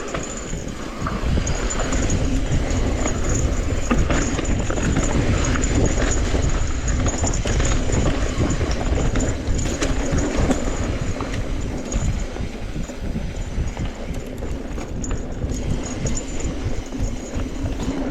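Electric mountain bike riding over a rough trail: a steady low rumble from tyres and wind with constant small rattling knocks.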